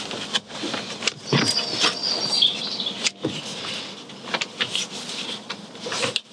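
Scattered clicks, knocks and rattles of a pushchair frame being handled while a part is worked into place to slot in.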